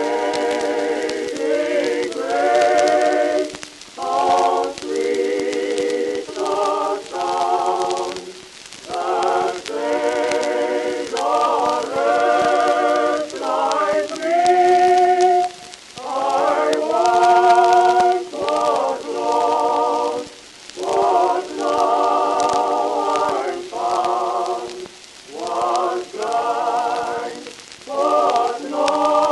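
A cappella choir singing slow, sustained chords with vibrato, in phrases of a second or two separated by short breaks.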